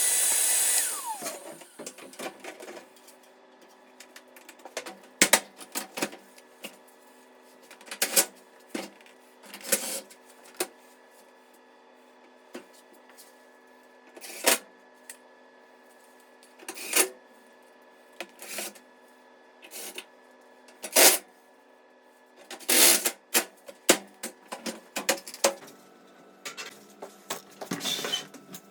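A motor's loud steady hiss winds down with a falling whine in the first second or two. Irregular clicks and knocks of tools and parts being handled follow, over a faint steady hum.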